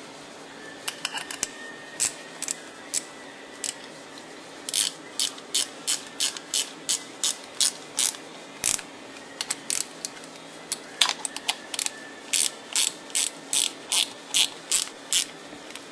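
A ratchet clicking in runs of short sharp clicks, about two or three a second, with brief pauses between runs, as hex-head mounting screws are driven into the plastic body of a fuel pump.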